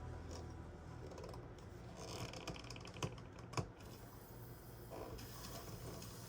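Faint irregular ticking and crackling as water is let into a newly installed hot water heater, with two sharper clicks about three seconds in.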